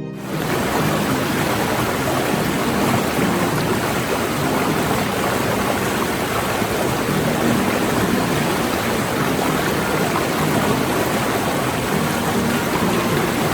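Rushing water of a mountain stream, a steady, loud, even roar with no pauses.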